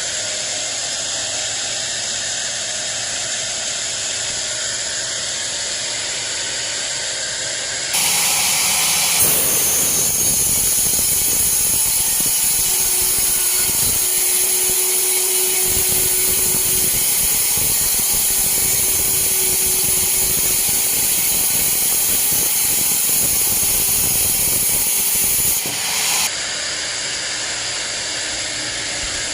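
Sawmill band saw running with a steady mechanical hiss. It is louder and hissier from about a third of the way in until near the end, then drops back.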